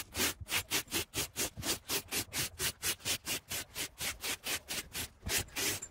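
Hand scrub brush rubbing back and forth over a wet fabric boat headliner, in quick, even strokes about five a second.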